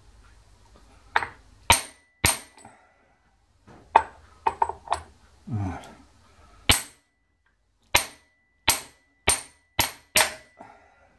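Hammer blows on a steel drift, driving bearing cups down into a warmed housing: about a dozen sharp metallic strikes at uneven intervals, some leaving a faint ring. The housing was not quite hot enough for an easy fit, so the cups need tapping home.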